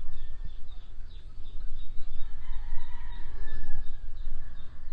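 A rooster crowing once, a long held call starting about two seconds in, with repeated short high chirps and a low rumble underneath.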